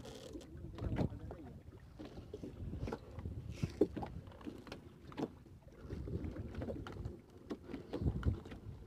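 Irregular knocks and handling noise from a fishing net being hauled in by hand over the side of a small boat, over a low steady rumble.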